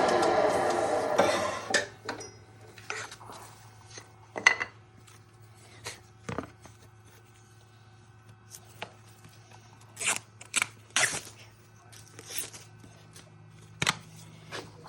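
Wood lathe turning tool cutting into a spinning wooden window frame, a loud rasping sound that stops about a second and a half in. A steady low hum follows, broken by scattered light clatters and knocks.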